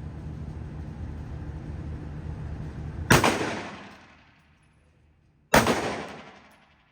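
Two handgun shots about two and a half seconds apart, each sharp crack trailing off in a long echo. A steady low hum sits underneath until the first shot.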